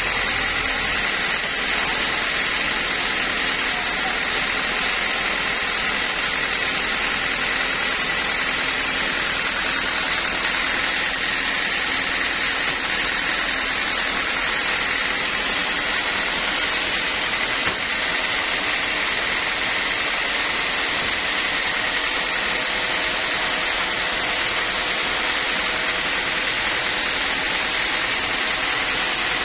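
A band sawmill running steadily while not cutting: an even mechanical whir with a thin high whine over it, unchanging throughout.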